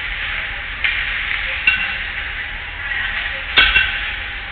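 Ice-rink play in a ringette game: a steady hiss and scrape of skate blades on the ice, with three sharp knocks of sticks, ring or boards, the loudest about three and a half seconds in.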